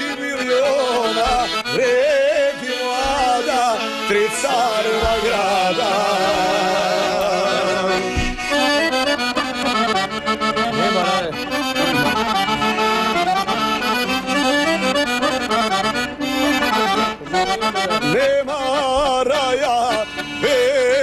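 Accordion playing a folk melody with no voice over it, an instrumental break in the song.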